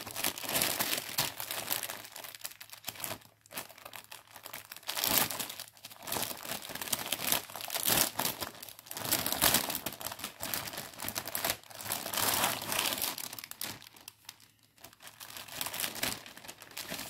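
Plastic packaging crinkling and rustling in irregular bursts, with short pauses, as an embroidery kit's contents are unpacked by hand.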